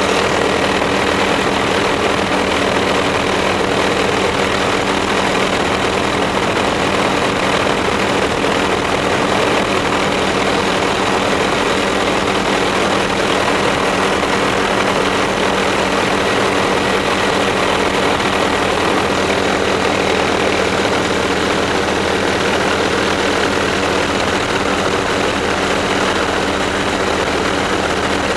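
Helicopter engine and rotor noise heard from inside the cabin: a steady drone with a thin high whine running through it.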